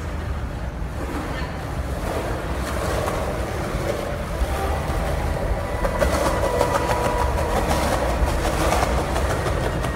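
A train rumbling steadily, heard from inside a railway tunnel, slowly growing louder, with thin high tones joining about six seconds in.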